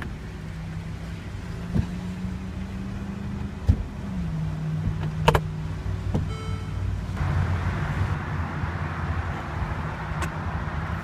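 Mercedes-Benz SL550's power retractable hardtop mechanism running: a steady motor hum that drops in pitch about four seconds in, with three sharp clicks as it moves. A short electronic beep comes a little past the middle, and after that a hiss grows louder.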